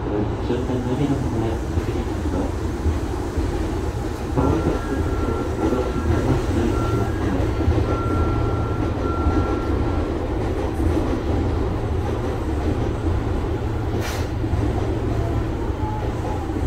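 Electric commuter train running, heard from inside the front car: a steady rumble of wheels on track. A thin high tone comes in about four seconds in and stops about ten seconds in, and there is a single sharp click near the end.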